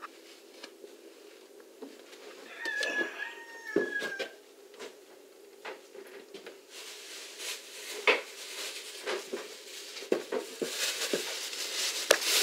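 Scattered clicks and knocks of hand tools on sink drain fittings, with one short squeaky cry about three seconds in and a steady hiss setting in about halfway through.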